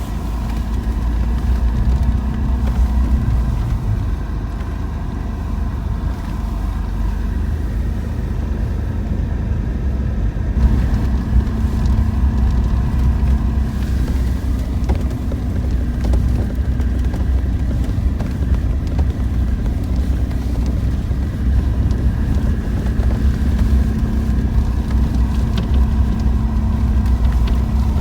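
Car driving along the road, a steady low engine and tyre rumble with a few constant tones, heard from inside the cabin.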